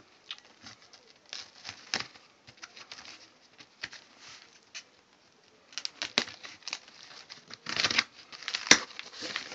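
Packing tape on a cardboard box being slit and scraped open with a makeshift blade, then picked at and peeled. Irregular scratching and clicking, a longer tearing rustle about eight seconds in, and a sharp snap just before the end.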